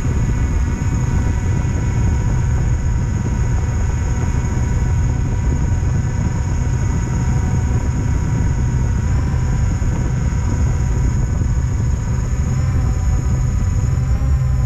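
Quadcopter drone's electric motors and propellers running in flight, a steady multi-tone whine that shifts pitch slightly twice as the drone adjusts, over a heavy low rumble.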